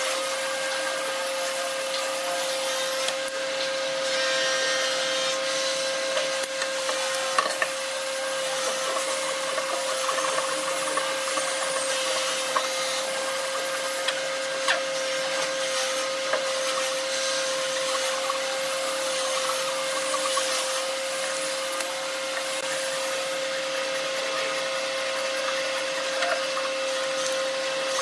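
Japanese-style hand saw cutting across a wooden strip, the teeth sawing through the wood stroke after stroke, over a steady machine hum.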